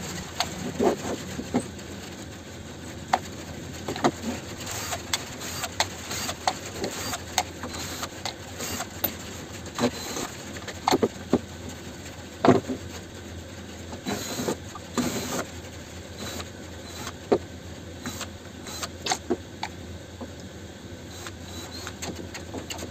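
Scattered clicks, knocks and rattles of tools and metal and plastic parts being handled on a workbench as a Stanley circular saw is taken apart, with a cordless drill-driver used on its screws.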